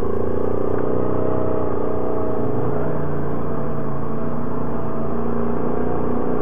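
ATV engine running steadily while riding along a trail, its drone holding an almost even pitch.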